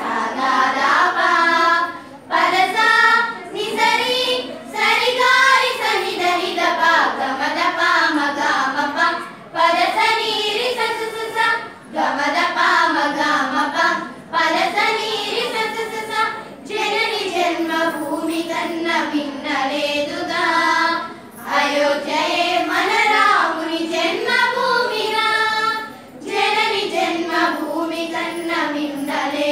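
A group of young girls singing a song together in unison, voices alone, in phrases broken by short pauses for breath every few seconds.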